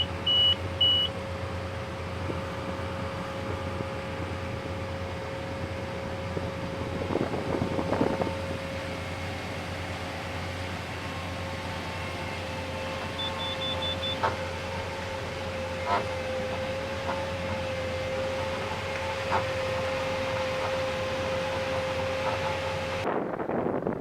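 Steady hum of a running vehicle or harvest machine, with a constant whine, three short electronic beeps at the start and a few more about 13 seconds in, and a few light clicks. About a second before the end it cuts off sharply to wind noise.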